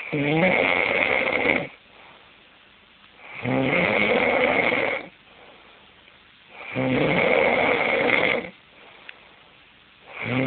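A man snoring loudly: a rasping, buzzing snore of about a second and a half roughly every three and a half seconds, three in full, with a fourth starting near the end.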